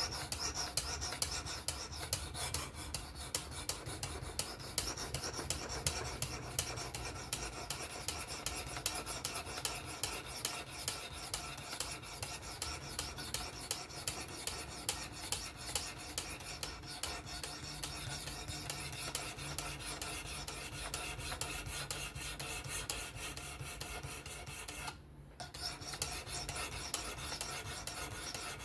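Knife edge drawn repeatedly across a 400-grit diamond plate on a Work Sharp Professional fixed-angle sharpener, a continuous scraping of steel on diamond under light pressure while the apex is refined. The strokes stop briefly about 25 seconds in, then resume.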